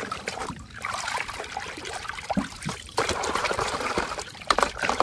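Muddy water sloshing and splashing in a basin as a hand scrubs a toy gun under the water, in irregular strokes; the splashing gets louder about three seconds in.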